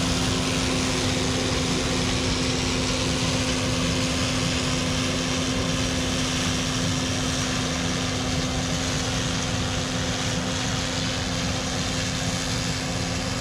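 Combine harvester running steadily while cutting soybeans with a draper header: an even engine drone holding one constant pitch. It feeds smoothly, without whomping or moaning.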